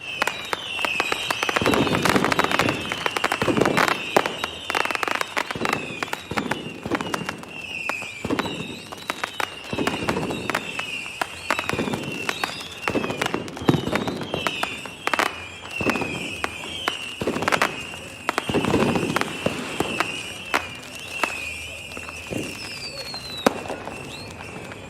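Fireworks going off in quick succession: sharp bangs and crackles with deeper booms every second or two. Under them runs a continuous high, wavering whistle.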